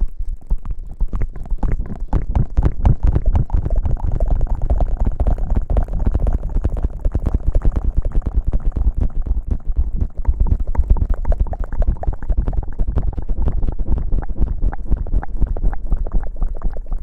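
Close-miked ASMR rustling and rubbing against the microphone: a dense, continuous crackle with heavy low thumps.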